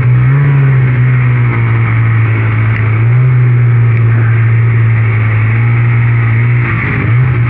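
Snowmobile engine running at steady throttle through deep powder, holding one even note, then wavering and easing off near the end.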